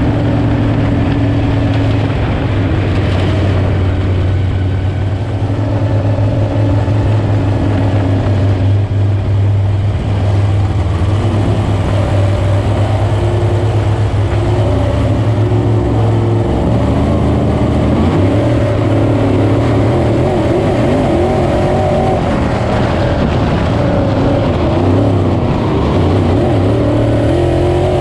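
602 Sportsman dirt-track race car's GM 602 crate small-block V8 at racing speed, heard from inside the cockpit. The engine note is loud and continuous, its pitch rising and falling as the car goes on and off the throttle through the turns.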